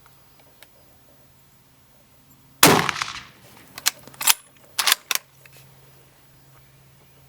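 A loud metallic bang that rings on for about half a second, followed over the next two and a half seconds by four sharp metallic clicks.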